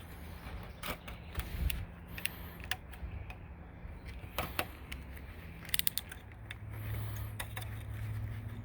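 Scattered light clicks and taps from handling an aluminium screen door frame and tools during a rescreening job, over a low steady hum.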